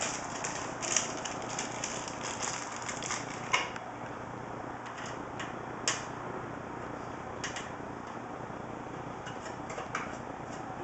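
Scattered small clicks and taps of thumb screws being fitted and turned by hand in a PC case's optical drive bay, metal on metal, over a steady hiss. The sharpest clicks come about a second in, about three and a half seconds in and about six seconds in.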